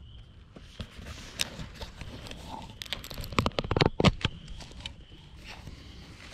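Close rustling, crunching and knocking as people in camouflage clothing shift and get up among dry leaves and brush, with handling bumps close to the microphone. The knocks come thickest about three to four seconds in.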